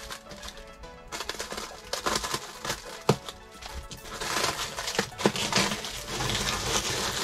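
Plastic packaging crinkling and rustling as it is pulled off a coil of rubber tubing, with a few sharp snaps about three and five seconds in.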